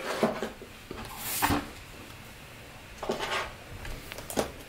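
Hard plastic trading-card cases being handled and set down on a table: a scatter of clicks and knocks, the loudest about a second and a half in, with a brief scuffing rustle a little after three seconds.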